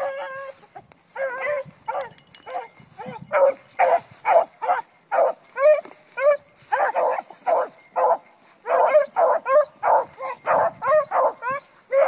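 Beagles baying as they work a scent: short, wavering howling barks about two a second, several dogs calling over one another, the voice hounds give on a trail.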